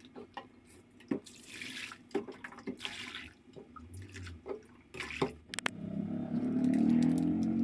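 Water poured from a plastic dipper and splashing into a stainless steel basin, with a few clicks and crinkles from a plastic detergent sachet being handled. The water sound grows louder and steadier over the last couple of seconds.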